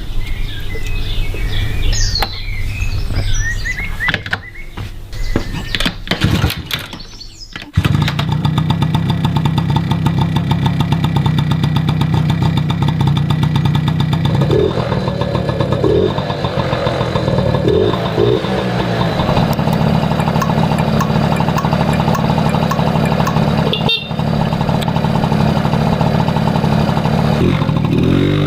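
Honda motorcycle engine starting about eight seconds in, then running steadily at idle with a fast even beat. A brief dip comes near the end. Before the start there are uneven handling and clattering noises.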